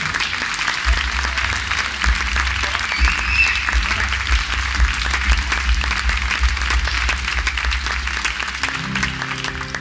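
Audience applauding a live band at the end of a song, with the dense clatter of many hands clapping. Near the end an instrument comes in holding a low chord.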